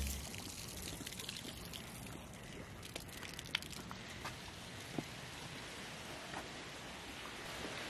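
Water pouring from a pipe in a wall and splashing onto wet pavement: a faint, steady splashing wash, with a few light ticks.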